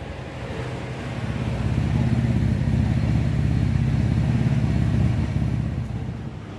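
A motor vehicle's engine running, with a steady low note that swells up and then fades away, as if passing by.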